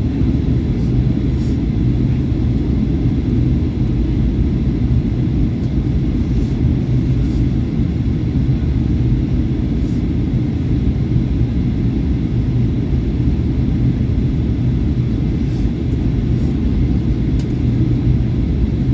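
Steady cabin rumble inside a Boeing 737-800 during its descent to land, the CFM56-7B engines and airflow heard from a window seat by the wing, with a constant low hum running through it.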